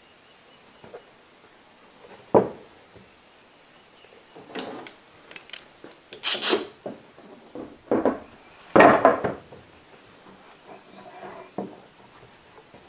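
Wooden boards being laid together and shifted on a wooden workbench for a glued lamination: wood rubbing on wood and scattered sharp knocks, loudest about six and nine seconds in, with clatter as bar clamps are handled and put on.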